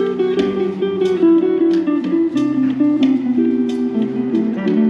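Guitar played live, picking a run of single notes, about two or three a second, over a lower bass line.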